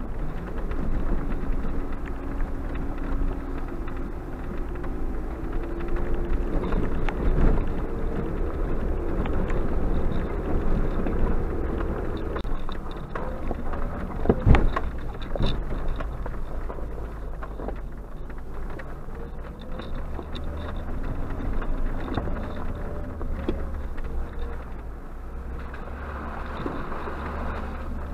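Suzuki Jimny JB74's 1.5-litre four-cylinder engine running with its revs rising and falling as it drives a gravel track, over a steady rumble of tyres on gravel. There is one sharp knock about halfway through, the loudest moment, as the vehicle jolts over the rough surface.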